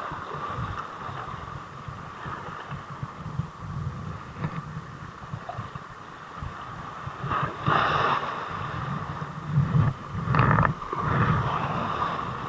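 Choppy sea waves slapping and splashing against the boat, with wind buffeting the microphone as a fluttering low rumble; two louder splashes come in the second half.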